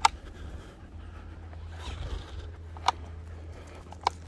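Footsteps and scratchy rustling as a walker crosses grass onto pavement, with three sharp clicks: one at the start, one just before three seconds in and one near the end, over a low steady rumble.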